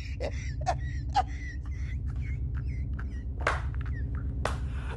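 Birds chirping faintly over a low steady hum, with light clicks about every half second.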